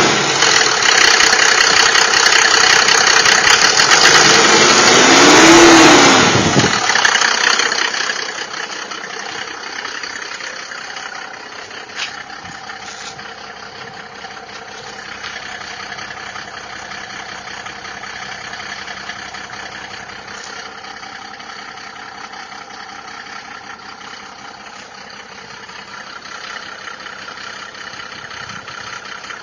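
Mercedes-Benz W124 300D's OM603 three-litre straight-six diesel engine running with the knock the owner is showing. It is loud for the first few seconds, with a brief rev up and back down about five seconds in, then settles to a quieter steady idle.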